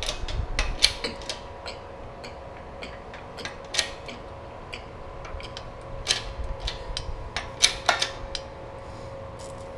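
Irregular sharp metallic clicks and ticks from an AKBUILDER rivet jig being worked to press and crush a long rivet in an AK rear trunnion.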